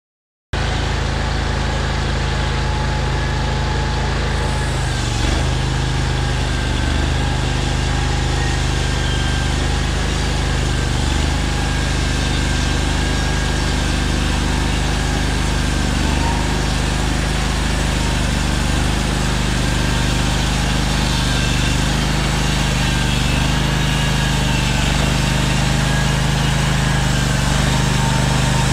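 The gas engine of a Hud-Son Oscar 336 portable bandsaw mill running steadily at working speed while the saw head is pushed along a log. The sound cuts in about half a second in and holds an even level.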